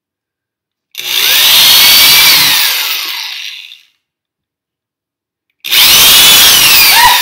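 Electric drill boring 5/16-inch pilot holes into a wall, run twice with a pause of nearly two seconds between. Each time the motor whine rises as it spins up and falls away as the trigger is let go.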